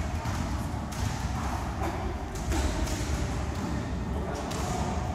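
Scattered dull thuds from two boxers sparring in a ring, over a steady low gym rumble.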